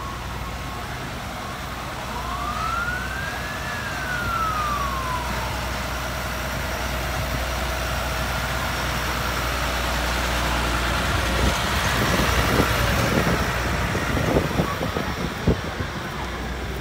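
Big New Holland farm tractor's diesel engine running as it passes close, getting louder toward the middle. A siren wails once, rising then falling, a few seconds in, and several sharp knocks come near the end.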